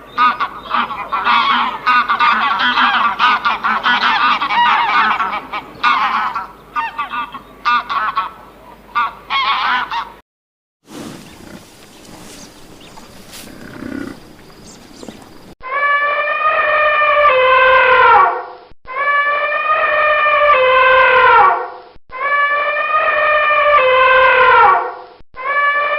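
A flock of geese honking, many calls overlapping. After a cut comes a quieter noisy stretch, then a long, loud call that falls in pitch, repeated four times.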